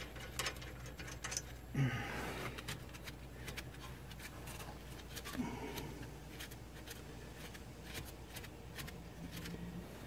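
Faint metallic clicks and light taps as the loosened front brake caliper bolts of a 2014 Nissan Frontier are spun out by hand and the caliper is handled, over a low steady hum.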